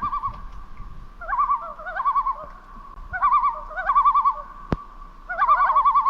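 Loon tremolo calls: four wavering, warbling phrases that rise and fall around one pitch. A single sharp click comes about three-quarters of the way through.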